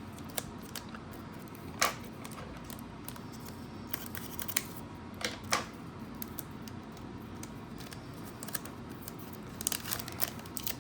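Foil booster-pack wrapper being opened and cards handled: a few short sharp crinkles and clicks, with a cluster near the end.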